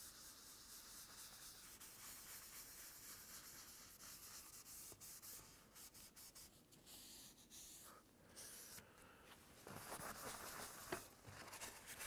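Faint rubbing of an applicator pad spreading hard wax oil over a walnut board.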